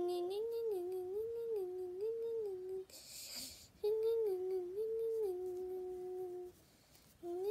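A person humming a repeating two-note tune that swings smoothly up and down, in two phrases. A short hiss falls in the break about three seconds in.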